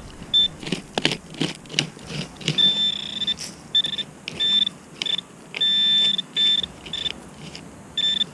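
Metal detector beeping at a buried metal target: a high single-pitched tone that sounds in repeated beeps, mostly short with two longer ones, as the coil passes over the spot. Short knocks and scrapes come between the beeps.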